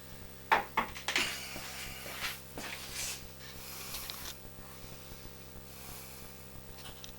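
A few sharp knocks about half a second and a second in, then rubbing and rustling: caster wheels and their mounting hardware being handled, over a steady low hum.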